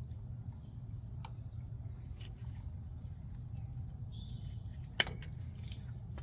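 A single sharp click about five seconds in, over a steady low hum, with a few faint high bird chirps.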